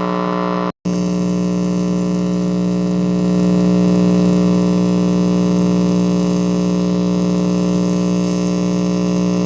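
Buzzing hum from a loose auxiliary audio cable, with static hiss over it. It is steady and loud, cuts out completely for a split second a little under a second in, then comes straight back.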